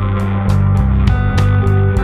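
Background music: guitar over a steady beat.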